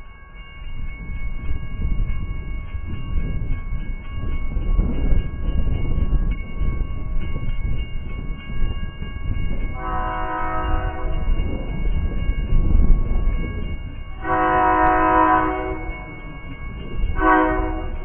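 Metra commuter train approaching and sounding its horn: a long blast, a second long blast, then a short one, in the long-long-short pattern of a grade-crossing signal. A steady low rumble runs underneath.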